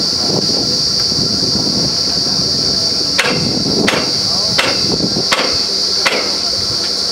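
Five evenly spaced hammer blows on metal, about one every 0.7 s, each ringing briefly, starting about three seconds in. Under them a drilling rig runs with a steady high hiss.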